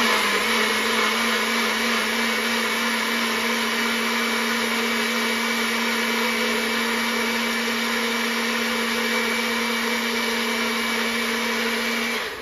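NutriBullet personal blender running at a steady pitch as it purées tomato sauce, then switching off abruptly near the end.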